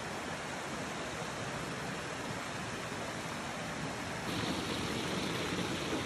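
Water running in a small forest brook, a steady rushing that gets louder about four seconds in.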